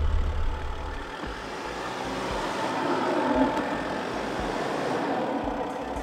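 Truck engine sound, running steadily and swelling a little about halfway through, from the small RC flatbed truck driving across the dirt. Background music fades out within the first second.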